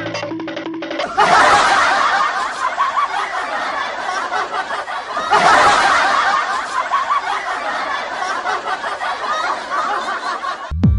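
Crowd laughter, a canned laugh track, starting abruptly about a second in and swelling again about five seconds in.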